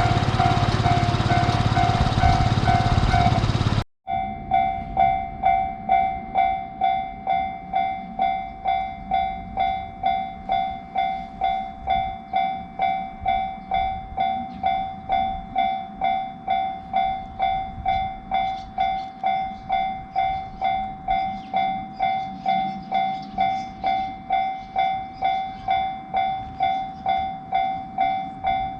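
Japanese railway level-crossing warning bell ringing its steady "kan-kan", an evenly repeated ding at about three strikes every two seconds. For the first four seconds it sounds under loud steady noise, then after a sudden cut it rings alone.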